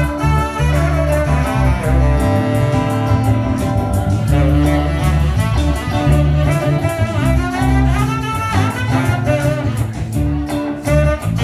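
Live band music led by a tenor saxophone solo of held and sliding notes, over a bass line and drums.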